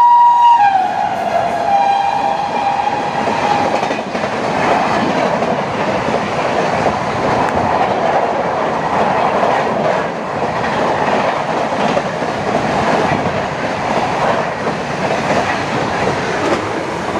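WAP-7 electric locomotive's horn sounding as the train passes at speed: its pitch drops under a second in as the locomotive goes by, and the horn fades out by about four seconds. The superfast express's coaches then rush past with a steady, loud running noise of wheels on rail.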